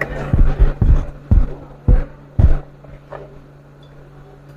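About six dull knocks and bumps in the first two and a half seconds, from hand and tool work on a workbench, then quieter, over a steady low hum.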